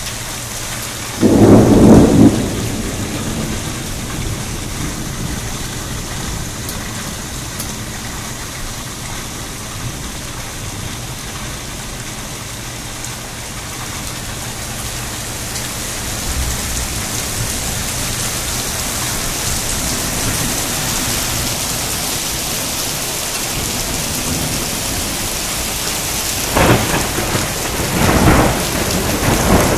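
Steady heavy rain, with a loud clap of thunder about a second in and two more thunder peals near the end.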